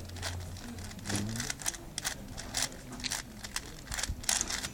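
A 4x4 Rubik's cube being turned quickly by hand during a solve: irregular plastic clicks and clacks as its layers are twisted, about three or four a second.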